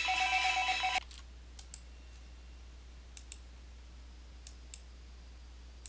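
Music from a streamed TV broadcast that cuts off abruptly about a second in as the player is paused, followed by computer mouse clicks, each a quick double click of press and release, three times over a faint steady hum.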